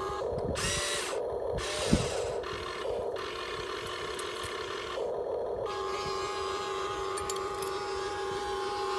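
Electric motors of a Huina 1592 RC excavator whining steadily, the whine breaking off and coming back as the controls are worked, with rasping stretches and one sharp knock about two seconds in.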